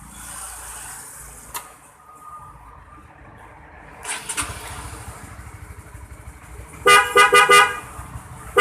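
Aftermarket Denso WP horn fitted to a Honda CB150R, giving four short beeps in quick succession near the end. Under it, the motorcycle's engine comes on about halfway through and keeps running steadily.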